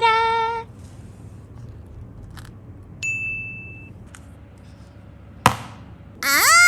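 Edited-in sound effects: a short chime note at the start, then a single high ping that fades out about three seconds in, a sharp click, and near the end a sing-song voice swooping up and down in pitch.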